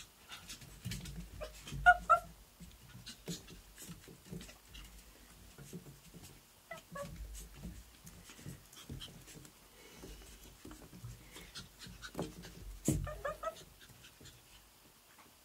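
Havanese and Shih Tzu puppies at play: a few short high yips, the loudest about two seconds in and more near the end, amid light scuffling and clicking.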